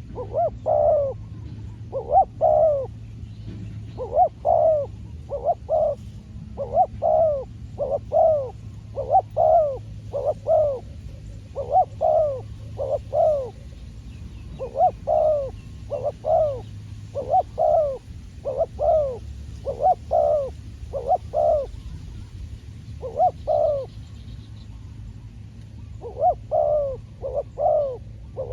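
Spotted dove cooing over and over: short arched coos in runs of two to four, with brief pauses between runs and a longer pause near the end. A low steady hum runs underneath.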